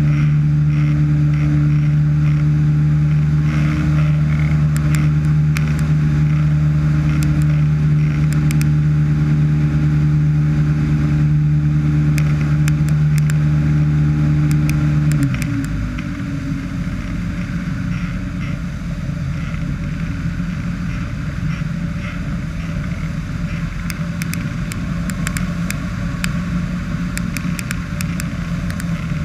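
Ultralight trike's engine and pusher propeller running steadily at cruise power, then throttled back about halfway through: the note drops suddenly and the engine runs lower and quieter. Wind rushes over the microphone throughout, with scattered small knocks.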